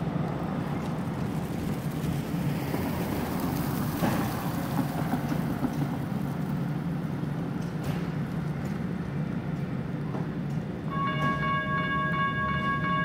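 Street traffic noise with a car driving past over the crossing, then about eleven seconds in a General Signals Type 1 electronic crossing bell starts ringing, a steady repeating electronic tone, as the crossing signals activate for an approaching light-rail train.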